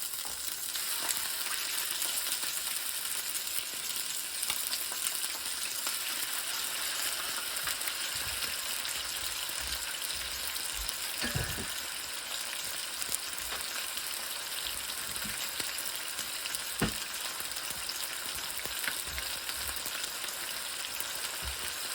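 Chicken breast sizzling steadily as it fries in a hot pan, with a couple of light knocks partway through.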